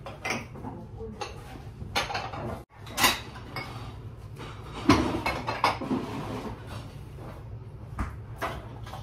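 Ceramic dishes and bowls clinking and knocking as they are picked up, stacked and set down on a stainless steel counter, in irregular clatters with a few louder knocks, over a steady low hum.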